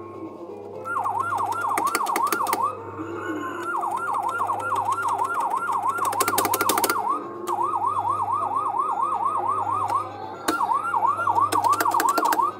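Electronic yelp-style siren sound effect from a coin-operated fire truck kiddie ride's speaker, wailing rapidly about three or four times a second. It sounds in four bursts with short breaks between them, as the siren button is pressed.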